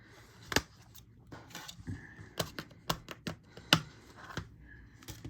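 Irregular sharp clicks and taps of a Blu-ray Steelbook case and its art cards being handled, the loudest a little under four seconds in.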